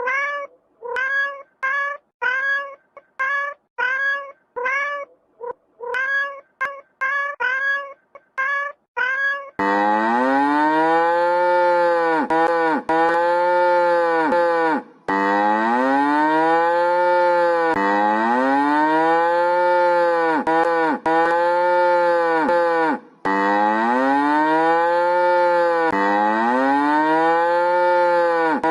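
A cat meowing over and over in short calls, about two a second. About a third of the way in it gives way to a cow mooing in arched calls, about one a second and nearly back to back.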